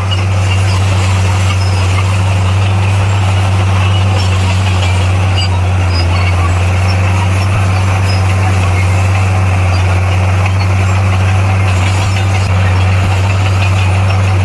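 Diesel engine of a heavy earthmoving machine running at a steady speed: a loud, even, low drone with no revving.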